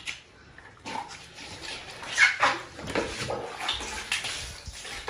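Water poured from a mug over a wet husky's thick coat, splashing and running off onto a tiled floor, starting about a second in in uneven surges.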